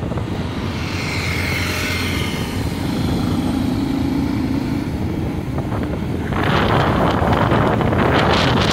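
Motorcycle engine running steadily at a cruising speed of about 40 km/h, with wind rushing past. From about six seconds in, a much louder rushing hiss takes over.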